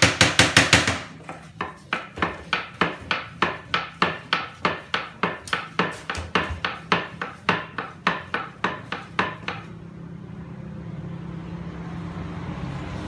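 Wooden knocking: a quick flurry of loud sharp strikes, then a steady run of knocks about three a second that stops about ten seconds in, followed by a steady hiss.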